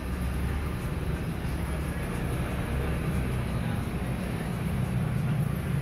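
Steady low roar of a gas stove burner heating a wok of frying rice, with an even rumble and no breaks.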